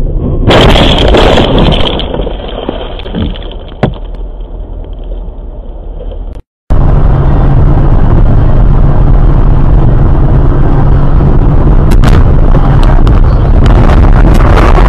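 Dashcam vehicle noise in two clips. The first has a sudden loud crash-like burst about half a second in, then rougher road noise and a single sharp knock. After a brief dropout comes a steady loud drone of a car driving, heard from inside the cabin, with a few sharp knocks near the end.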